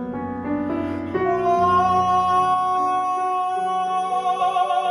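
A singer holds one long high note over piano accompaniment, the pitch steady at first and then wavering in an even vibrato.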